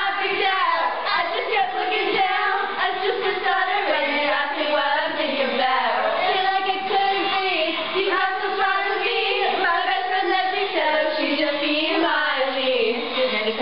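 Music with singing voices: a song with a sung melody.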